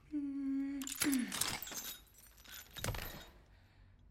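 Film fight sound effects for a neck break: a strained vocal cry held for about half a second, then a sharp crack with a voice groaning downward in pitch about a second in, and a heavy thump near three seconds.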